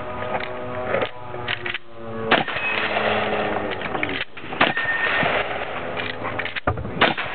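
A string of rifle shots, sharp cracks that come irregularly from under a second to about two seconds apart. Voices and other noise lie between them.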